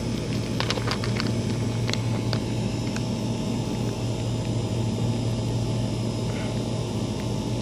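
Steady low mechanical hum, with a few light clicks of stones knocking together as a hand picks through rounded cobbles in the first two or three seconds.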